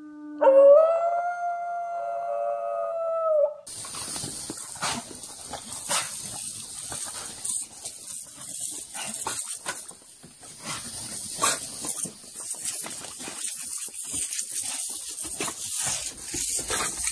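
An American Bully dog howls one long held note for about three seconds. After an abrupt cut comes the steady hiss of a garden hose spray nozzle, with water splashing on the dogs and the wooden porch.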